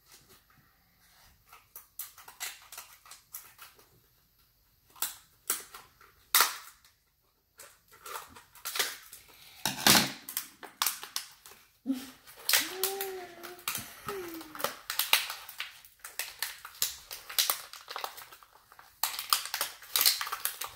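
Crinkling and crackling of plastic blind-bag packets being handled: a string of sharp crackles, sparse at first and much busier in the second half.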